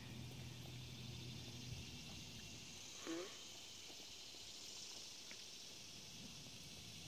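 Steady, faint, high-pitched insect chorus across a summer field. A low hum stops about two seconds in, and a short call with falling pitch sounds about three seconds in.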